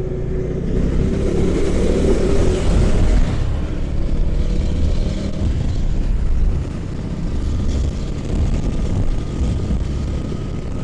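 Motorcycle riding at highway speed: wind rushing past the microphone over the engine and road noise, loudest for the first few seconds.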